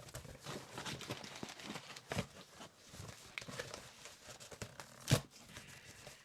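Rustling and crinkling of packing material as hands dig through a cardboard box, with one sharp knock about five seconds in.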